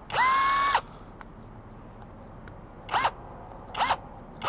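Cordless power tool's motor whining in trigger bursts, spinning a Torx socket on a bumper bolt. A longer whine comes first, rising quickly to a steady pitch, then two short rising-and-falling whines near the end.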